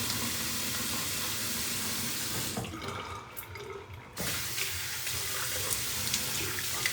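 Water running from a tap into a sink, a steady rush that drops away for about a second and a half midway before resuming.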